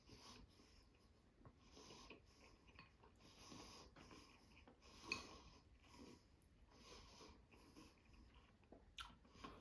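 Near silence: faint breathing and soft eating sounds, with a small click about five seconds in and another near the end.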